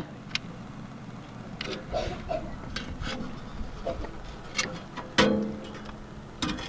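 Scattered metal clanks and clinks as a rusty chimney starter full of charcoal briquettes is handled and set down on a steel grill grate. The loudest knock comes about five seconds in and rings briefly.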